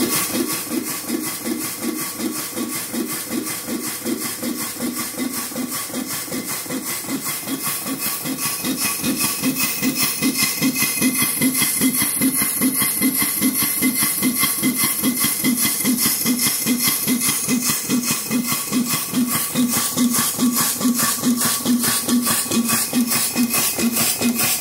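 Payne automatic vertical single-cylinder steam engine running on compressed air, beating steadily about four times a second, a little louder from about ten seconds in.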